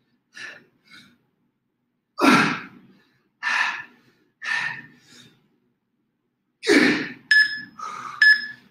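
A man's heavy, gasping breaths, hard exhalations a second or so apart, as he strains through the last seconds of a set of push-ups. Near the end, two short electronic beeps about a second apart, a workout interval timer counting down to the rest.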